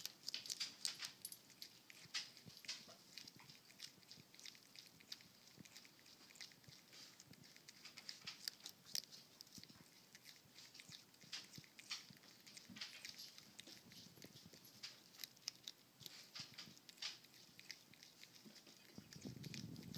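Prairie dog chewing a carrot: quiet, irregular crunching clicks, several a second.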